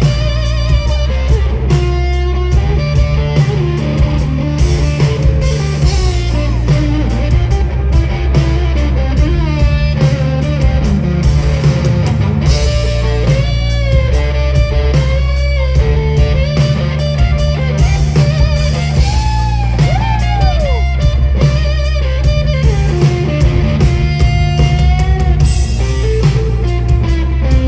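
Rock band playing an instrumental passage: an electric guitar plays a lead line with bending notes over sustained bass.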